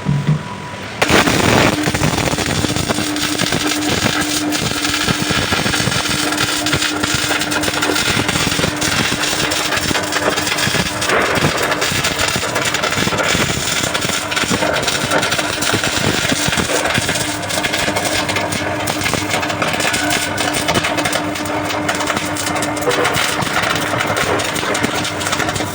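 MIG welding arc running one long continuous bead, a dense steady crackle with a steady hum underneath. It starts about a second in and keeps going without a break.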